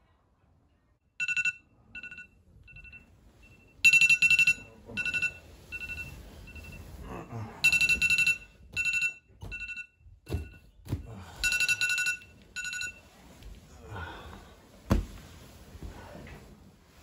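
Smartphone alarm beeping: a high two-pitch beep repeated in groups, some groups much louder than others, stopping about thirteen seconds in. A few dull thumps and bedding rustles follow, with one louder thump near the end.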